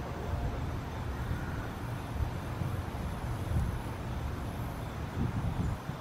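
Wind buffeting the microphone: an irregular, gusty low rumble. No siren tone is heard.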